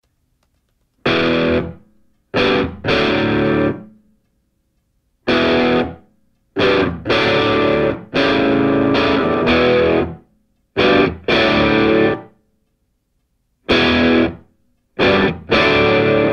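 Music track: distorted electric guitar playing chords in short phrases that stop and start, with brief silences between them.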